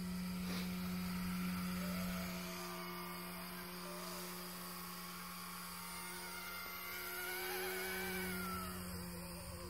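Small drone's electric motors and propellers buzzing steadily, with higher tones that waver in pitch. The sound is louder for the first couple of seconds and swells again near the end.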